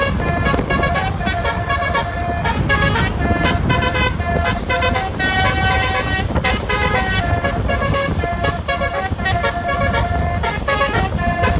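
A bus's basuri 'telolet' musical horn playing a tune of quick changing notes, over steady engine and traffic noise.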